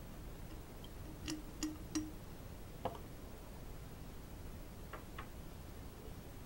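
Lab glassware being handled in a plastic tray: three quick light clinks, then a knock about three seconds in as the glass conical flask is set down, and two faint ticks near the end.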